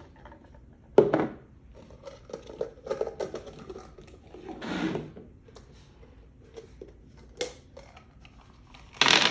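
Scattered clicks, taps and crinkling rustles of plastic egg shells and candy wrappers being handled and opened. Near the end a much louder, continuous sound starts abruptly.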